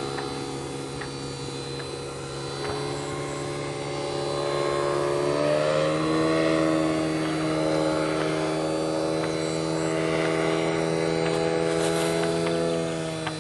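Microlight trike's engine and pusher propeller running, the pitch and loudness rising about five seconds in as it is throttled up, then holding steady before easing off near the end.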